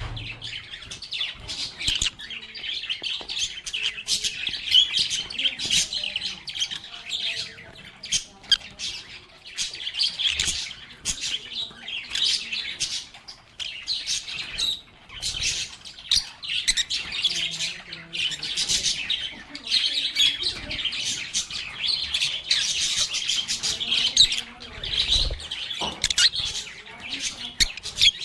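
Several lovebirds chirping and squawking, with many shrill, high calls overlapping without a break.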